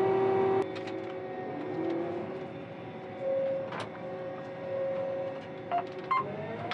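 Combine harvester running with a steady mechanical hum and a few light clicks. A louder steady drone cuts off abruptly about half a second in, and a tone rises near the end.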